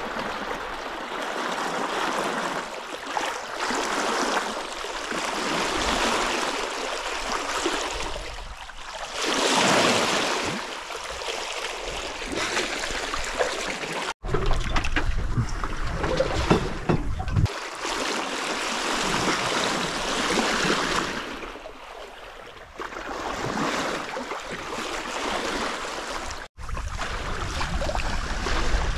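Water rushing and splashing along a sailboat's hull under sail, swelling and easing with the waves, with some wind rumble at times. The sound cuts out abruptly twice, about halfway and near the end.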